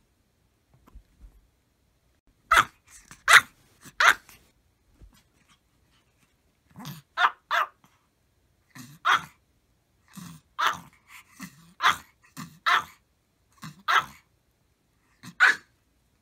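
Maltese puppy barking: about fourteen short, sharp, high yappy barks in irregular bursts, starting a couple of seconds in with brief pauses between clusters.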